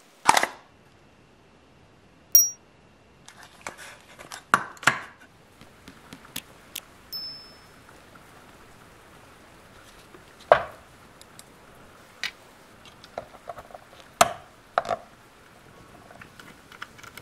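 Scattered sharp knocks and clicks of a small wooden box and hard plastic parts being handled, with two short, high pings in the first half.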